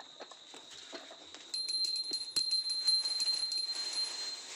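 A small bell rung rapidly, quick strikes over a steady high ring that grows louder about a second and a half in.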